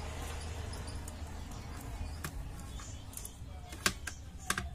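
A few scattered metallic clicks and taps of a screwdriver working on the screws of a DVD player's disc drive mechanism, the sharpest near the end, over a low steady hum.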